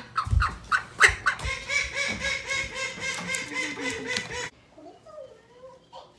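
Call duck hen quacking in a rapid run of loud, repeated quacks that stops about four and a half seconds in.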